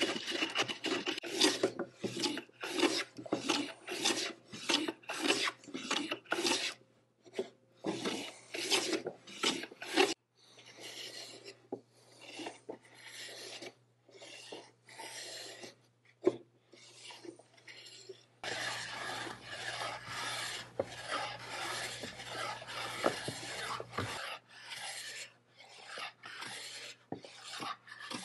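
Hand planes, a jack plane and then an infill plane, shaving a wooden board: repeated rasping cutting strokes with shavings peeling off. The strokes come quick and short at first, about two a second, then turn longer and more continuous later on.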